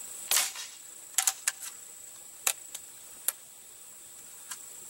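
A Crosman 760 Pumpmaster multi-pump pellet rifle fires once, a single sharp shot about a third of a second in. Then a string of mechanical clicks follows as the bolt is pulled back, the clip advanced and the rifle pumped up for the next shot.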